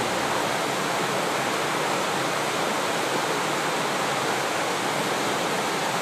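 Shallow mountain stream rushing over rocks: a steady, even wash of running water.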